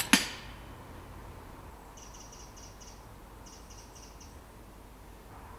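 An FX Dynamic Compact air rifle fires a single shot: a sharp crack, then a second sharp smack a split second later as the pellet strikes the grey squirrel. Later a small bird calls two short runs of quick high chirps, about two and three and a half seconds in.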